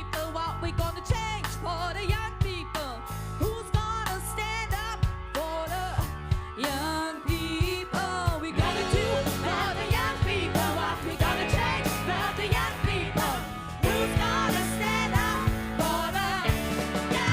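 A live funk and soul band playing, with a drum kit keeping a steady beat, a bass line, and a melody line that bends and wavers.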